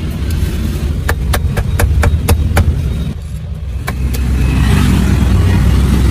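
Street traffic rumbling steadily, growing louder about two-thirds of the way through as vehicles pass close by. About a second in comes a quick run of sharp knocks, about four a second.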